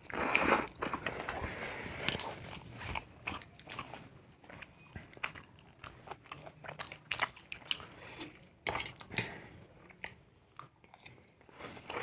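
Close-up eating sounds: people chewing mouthfuls of chow mein noodles, with irregular wet clicks and smacks.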